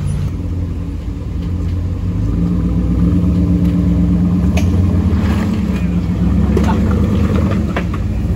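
Ram pickup truck engine running at low revs as the truck crawls over a rocky off-road trail, growing louder about two seconds in, with a few sharp clicks.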